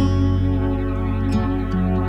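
Calm instrumental background music with plucked guitar notes over a held low bass.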